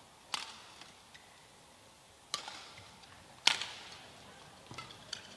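Badminton rackets striking a shuttlecock during a rally: three sharp hits, the third the loudest, with a few faint ticks near the end.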